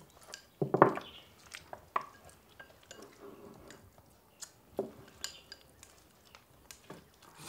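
People eating with chopsticks from ceramic bowls: scattered light clicks and knocks of chopsticks on the bowls, the loudest about a second in.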